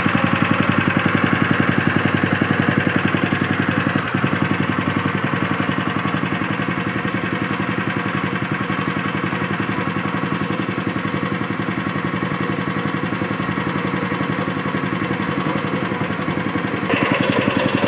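An engine running steadily with a fast, even beat. It drops slightly in level about four seconds in and gets louder again near the end.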